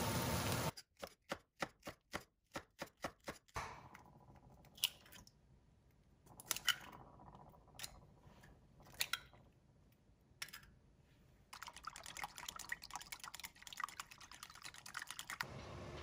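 Eggs cracked one after another against the rim of a ceramic bowl: a few separate sharp taps. A quick run of soft rhythmic strokes comes before them, and a rapid patter of small clicks follows near the end.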